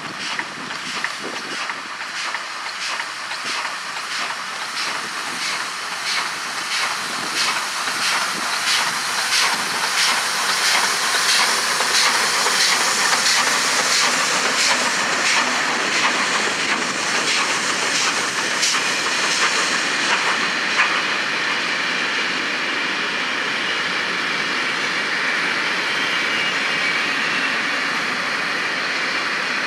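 Steam locomotive passing with its train, its exhaust beating in a fast, regular chuff that grows louder over the first dozen seconds and fades after about twenty seconds. Then comes the steady rolling noise of its passenger coaches going by on the rails.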